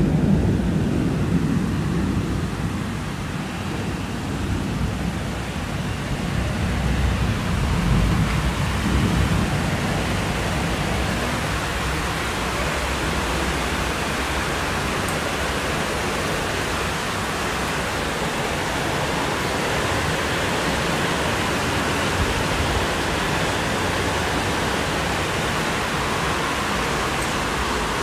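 Heavy rain pouring down in a dense, steady hiss, with a low rumble in the first several seconds that fades out.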